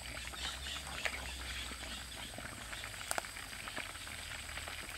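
Pork pieces deep-frying in a large wok of hot oil, a dense steady crackle. A metal ladle clinks against the wok and strainer a couple of times while the pieces are lifted out.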